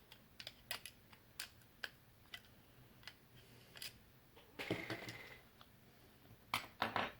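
Scattered light clicks and taps of small objects being handled, with a brief rustling scrape about halfway through and a few louder clicks near the end.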